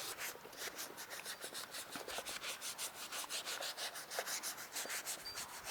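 Rapid, even scrubbing of a car's cabin air conditioner filter being washed with car-wash shampoo, about eight rubbing strokes a second.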